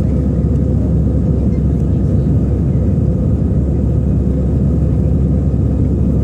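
Steady low cabin rumble of an Airbus A320 climbing just after takeoff: engine noise and airflow heard from inside the cabin, even and unchanging.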